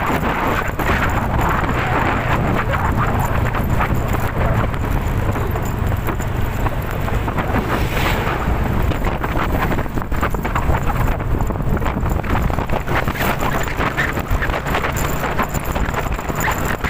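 Strong typhoon wind blowing steadily in gusts, with heavy wind buffeting on the microphone.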